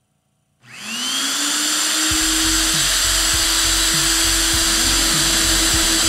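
Rig-mounted electric core drill switched on about half a second in: its motor spins up with a rising whine, then runs steadily at speed with a loud hiss. A low, uneven rumbling pulse joins about two seconds in.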